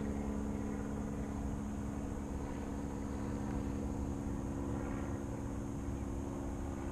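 A steady engine drone: a few held low tones over a low rumble, unchanging throughout.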